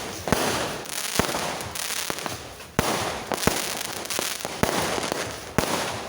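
New Year fireworks going off in rapid, irregular succession: sharp bangs about every half second over a continuous noisy wash.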